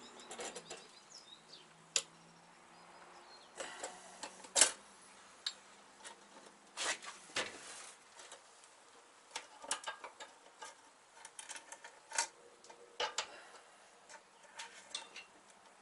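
Scattered light clicks and metal taps, about a dozen at irregular intervals, from a brake hard line being bent into a 90-degree bend and fitted into place. The loudest tap comes about four and a half seconds in.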